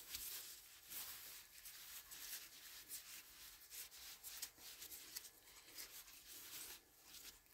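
Faint, irregular rubbing and rustling of a cloth rag and nitrile-gloved hands wiping the steel cylinder of a single-action revolver.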